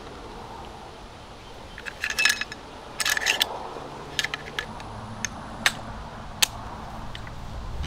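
Metal clicks and clacks of an AR-15 being reassembled by hand: the charging handle and bolt carrier going back into the upper receiver and the upper closing onto the lower. A quick cluster of clacks about two seconds in and another about three seconds in, then a few single clicks.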